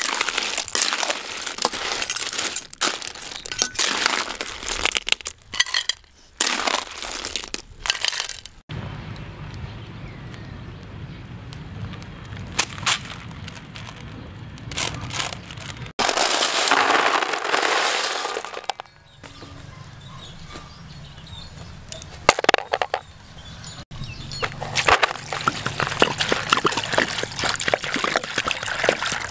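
River clam shells clattering and clinking against a metal wok as they are stirred with a ladle, and later clinking in a basin as water is poured over them. The sound changes abruptly several times.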